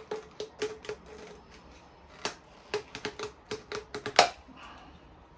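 A rapid, irregular run of sharp plastic clicks and taps, the loudest about four seconds in. They come from a heat-softened plastic dust-extraction duct fitting being gripped, squeezed and fitted together by hand.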